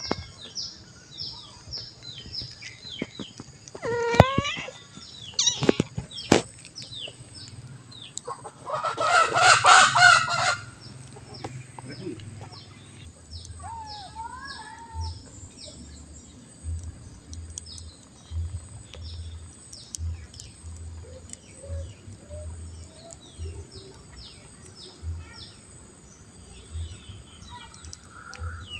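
A rooster crows once, loud and about two seconds long, roughly nine seconds in. Behind it small birds keep up quick, high chirps, with a few shorter calls around four and fourteen seconds in.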